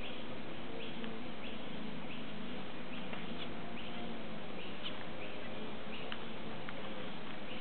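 Small finches in an aviary calling, short high chirps repeated about every half second, over a steady low background hum.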